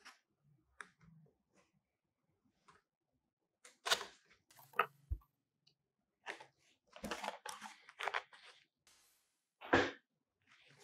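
Cardboard box being handled and opened: scattered light taps and scrapes, a louder knock about four seconds in, a couple of seconds of cardboard rubbing and sliding, and a sharp thump near the end.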